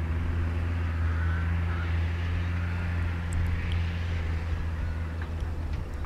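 New Holland 6050 tractor's diesel engine running at a steady, even speed with a low hum while it turns at the headland, the plough lifted out of the ground.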